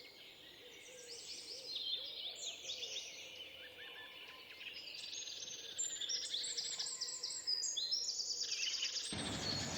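Several songbirds singing at once in a morning chorus of chirps, quick trills and rapidly repeated high notes. A steady rushing noise comes in just before the end.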